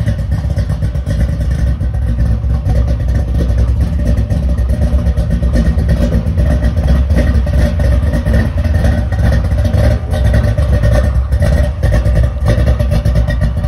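A 1988 Chevrolet Monte Carlo SS's V8 running at low speed with a deep, steady exhaust rumble as the car creeps forward.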